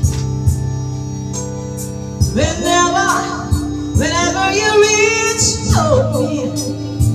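Woman singing into a handheld microphone over a backing track with a steady beat; her voice comes in about two seconds in, sustains a long wavering phrase, and drops out near the end while the backing track plays on.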